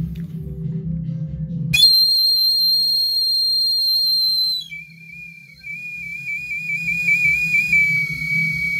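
Carved wooden bird whistle blown over recorded backing music with a steady beat. About two seconds in it holds one long high note, then drops to a lower, wavering warble.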